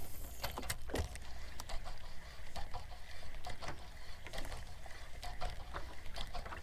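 Scattered light clicks and taps from a spinning rod and reel being handled, at irregular times, over a low steady rumble.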